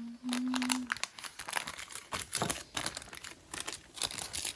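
Irregular crinkling and crunching as a freshly baked banana bread loaf is cut into.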